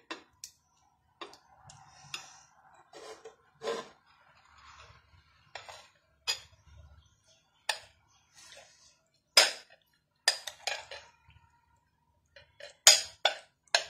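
A metal spoon clinking against a ceramic bowl as chicken pieces are stirred through a thick yogurt-and-spice marinade. The clinks are sharp and irregular, with a quick run of them near the end.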